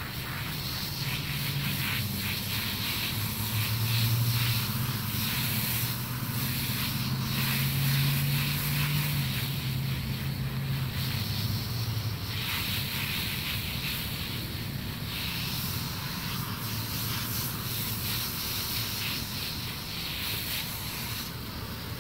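Garden hose spray nozzle spraying water onto a horse's coat: a steady hiss of spray, with a low steady hum underneath.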